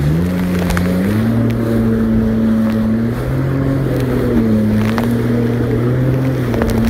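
Jet ski engine running at speed across choppy water, its pitch stepping up about a second in and then wavering as the throttle and waves change, with rushing water and wind on a splashed phone microphone.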